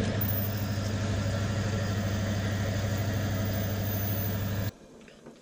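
Warco WMT 300 lathe-mill running with a steady hum while a twist drill in the tailstock chuck feeds into the spinning bar, drilling a hole down its centre. The sound cuts off suddenly near the end.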